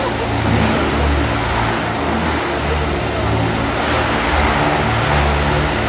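Radio-controlled helicopters flying 3D aerobatics: a steady whir of spinning rotor blades, with a low hum that shifts up and down in pitch every second or so as the blades are loaded and unloaded.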